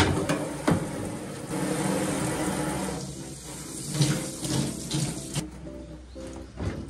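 Tap water running into a sink while dishes are washed, cut off suddenly about five seconds in, with a few light knocks of dishware.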